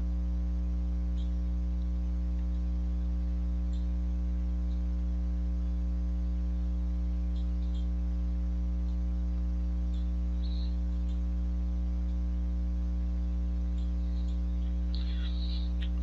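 Steady electrical mains hum: a constant low buzz with a stack of even overtones, with a few faint clicks.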